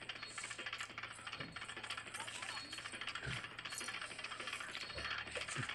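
Insects in the trees making a fast, steady ticking chirr. A couple of soft low thumps come about three seconds in and near the end.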